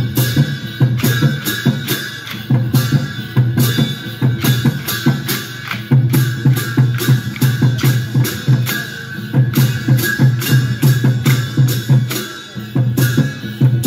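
Traditional Newari dance music: drums in a quick, steady beat with sharp percussive clicks, and a high held tone running over it.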